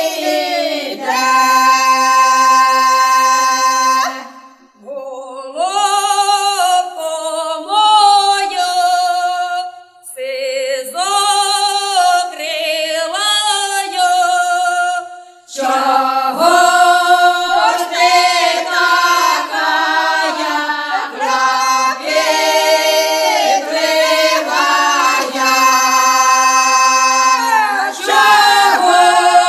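Background music: a choir singing, with female voices prominent and little or no accompaniment, pausing briefly between phrases three times.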